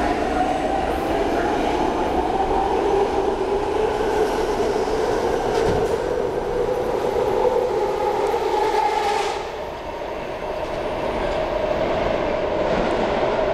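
BART train pulling out of an underground station: a two-tone whine over a rolling rumble from the train, dipping a little about ten seconds in and swelling again near the end.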